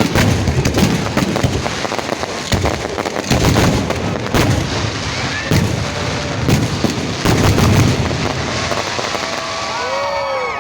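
Fireworks display bursting in quick succession: rapid bangs and crackling mixed with repeated deep booms, with rising and falling whistle tones near the end.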